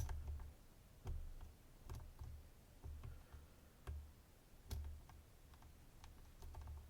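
Faint, scattered small clicks of a lock pick and tension tool working in the keyway of a DOM IX-HT dimple lock, with a few soft low bumps from the lock being handled.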